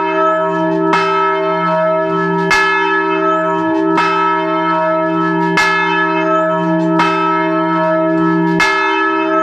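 Large church bell swinging and ringing, heard close up in the belfry: the clapper strikes about every one and a half seconds, six strikes, each tone ringing on under the next with a deep steady hum.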